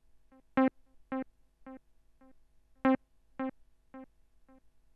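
Synthesizer playing one short note over and over through a delay echo: a louder note about every two and a half seconds, each followed by three quieter repeats about half a second apart that fade away.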